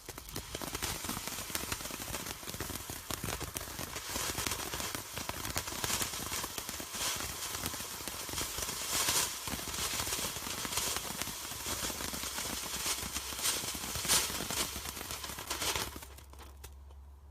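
Cutting Edge 'Spring Peach' firework fountain burning: a steady spraying hiss full of sharp crackles, dying out near the end.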